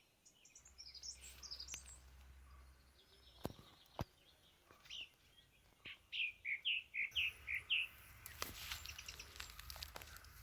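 Small birds chirping and twittering: a few high notes about a second in, then a quick run of about eight short, falling chirps near the two-thirds mark. Two sharp clicks are heard around the middle.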